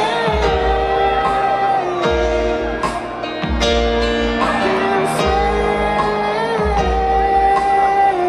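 Live band music: a male singer holding long, slow notes over piano chords, with bass and drums keeping a slow beat.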